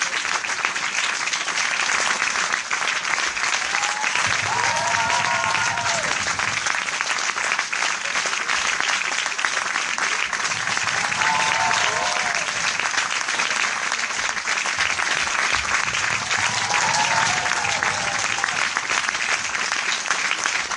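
Large audience applauding steadily with dense, continuous clapping. A short pitched call, like a cheer, rises and falls above it three times.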